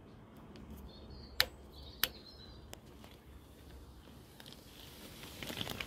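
Two sharp clicks about half a second apart, with faint high bird chirps around them, then a flurry of small clicks near the end.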